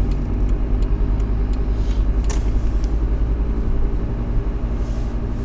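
Cabin noise inside a VW T4 campervan on the move: a steady low engine and road rumble, with one sharp click a little over two seconds in.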